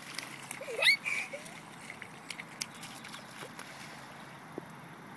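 A board skimming across shallow rainwater on grass, with light splashing and scattered small ticks. About a second in there is a short, sharp rising squeal.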